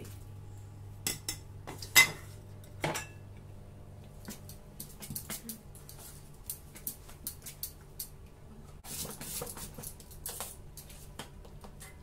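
A spoon clinking and scraping against a steel mixing bowl as thick rice and urad dal batter is beaten. There are a few sharper knocks in the first three seconds, the loudest about two seconds in, then a run of small quick clicks and scrapes.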